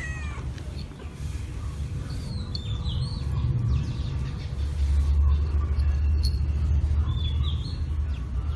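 A steady low rumble that swells about halfway through, with birds chirping a few times above it.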